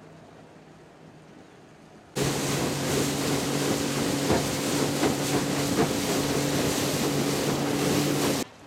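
A wooden water taxi's outboard motor running steadily at speed, heard from aboard the boat, with water rushing past and repeated knocks. It comes in suddenly a couple of seconds in, after faint distant boat engines, and stops abruptly just before the end.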